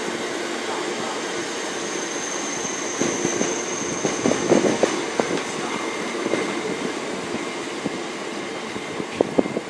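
Great Northern electric multiple unit running past, a steady rumble with wheels clicking over rail joints and a faint high whine. The clicks bunch up in the middle and again near the end.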